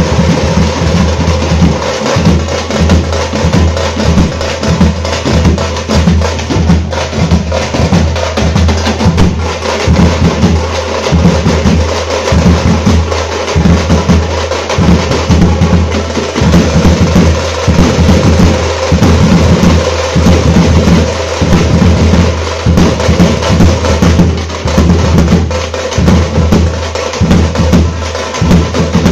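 A tamate drum troupe playing loudly: large bass drums and hand-held tamate frame drums beaten with sticks in a fast, dense, continuous rhythm, with a deep steady boom under rapid sharp strokes.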